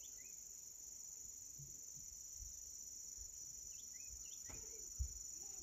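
Crickets trilling steadily in a high, even drone, with a few faint short chirps and one soft low thump about five seconds in.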